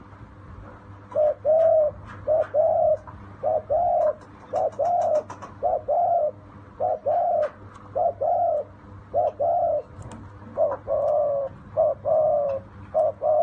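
Caged spotted dove cooing: a long run of short, soft coos, often in close pairs, starting about a second in.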